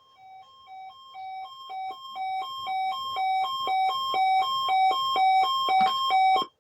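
Electronic beeping: a short, buzzy two-note beep repeating about three times a second. It grows steadily louder over the first few seconds, then stops abruptly near the end.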